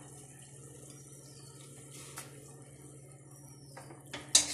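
Water boiling in a pan with vermicelli in it: a faint, steady bubbling over a low hum. There is a small click about two seconds in and a few light knocks near the end.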